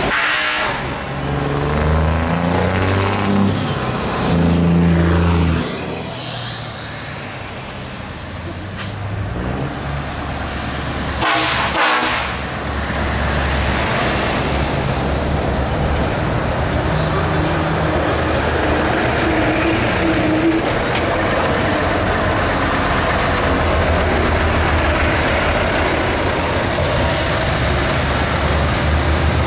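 Heavy diesel trucks passing one after another at close range, their engines running as each goes by. A short, loud hiss cuts in about eleven seconds in.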